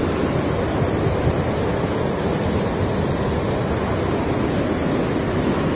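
Muddy flash-flood water after a cloudburst rushing past in a torrent: a loud, steady rush of water.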